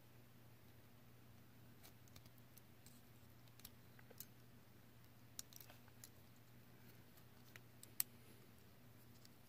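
Faint, scattered clicks of a plastic Bakugan figure's hinged parts being turned and pressed by hand while it is folded toward ball form, with one sharper snap about eight seconds in. A faint low hum runs underneath.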